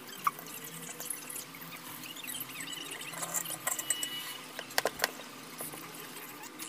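Faint small clicks and scratchy ticks in a quiet small room, with two sharper taps about five seconds in.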